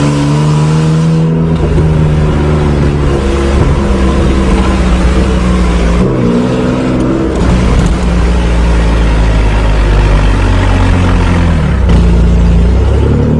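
1986 Nissan 4x4 pickup driving along a dirt track, heard from inside the cab: its engine runs loud under load, the note dipping and then climbing again a few times as the throttle eases off and picks up.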